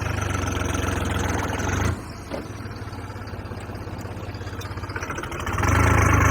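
Tractor engine running under load while the tractor is worked in deep mud. It eases off about two seconds in, then gets louder again near the end.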